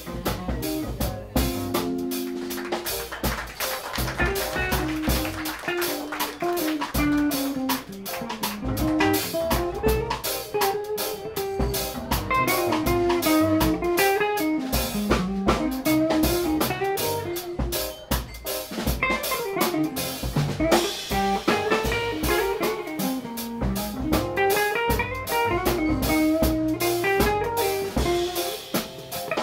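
Live jazz combo: an electric guitar plays a single-note solo line that winds up and down, over drum kit, upright bass and keyboard.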